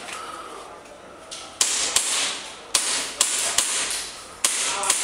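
Gas blowback airsoft pistol firing about six shots in quick, uneven succession, each a sharp crack.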